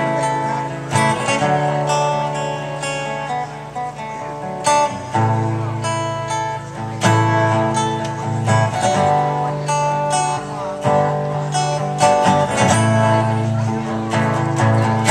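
Instrumental break of a song: guitar chords strummed in a steady rhythm over a held low bass, with no singing.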